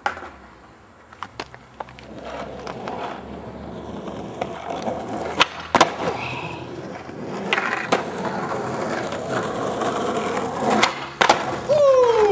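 Skateboard wheels rolling on rough asphalt, growing louder as the board comes closer. Sharp clacks of the board popping and landing come in pairs about five and a half seconds in, around eight seconds and near eleven seconds. A drawn-out, falling shout comes near the end.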